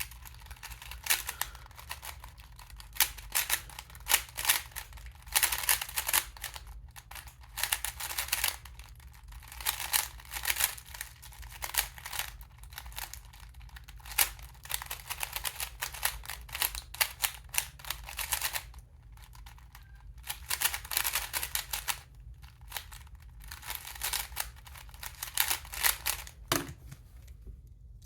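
Magnetic 3x3 speed cube being turned rapidly in a speed solve: dense runs of plastic clicks and rattles, broken by short pauses between move sequences.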